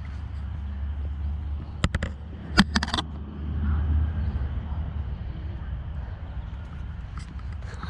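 Outdoor ambience on a handheld camera microphone: a steady low rumble with a few sharp knocks about two and three seconds in.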